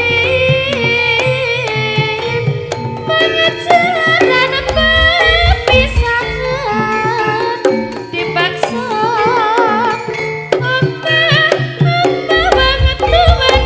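Live jaranan music: hand drums and metal percussion under a wavering, ornamented high melody line.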